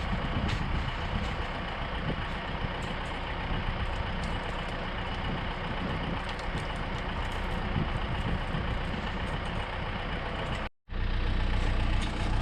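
An engine idling steadily, with a low, even hum. The sound cuts out completely for a moment near the end.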